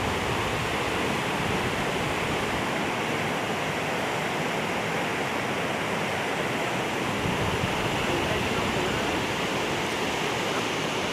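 Steady rush of fast, swollen river water in a flash flood, an even, unbroken noise.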